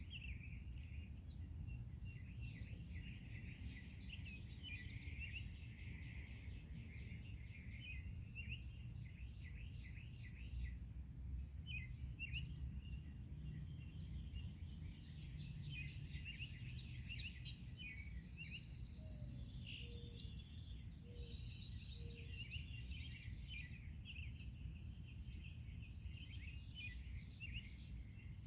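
Wild songbirds chirping and trilling over a steady low background rumble. About two-thirds of the way through, a louder, higher call repeats rapidly for a couple of seconds.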